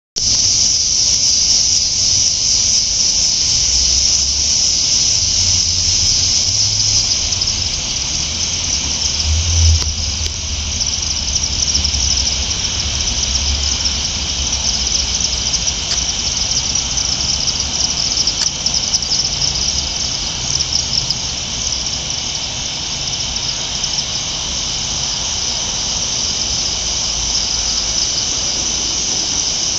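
A flock of chimney swifts gathering to roost, giving a continuous high-pitched twittering chatter of many overlapping calls.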